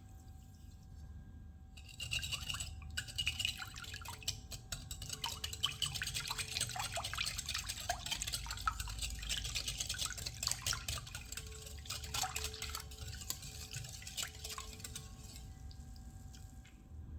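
A wet batter of egg, milk, water and sugar being whisked by hand in a bowl: a fast run of clicking and sloshing strokes that starts about two seconds in and stops a little before the end.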